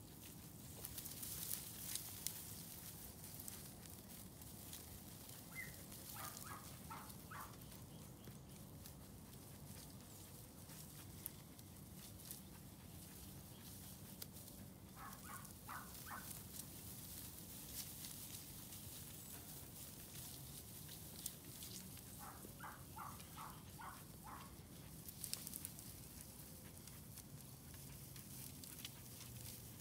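Faint crackling and tearing of dry grass as a small flock of sheep grazes, with scattered sharp clicks. Three short runs of quick repeated high notes come through, about a quarter of the way in, near the middle, and about three quarters of the way in.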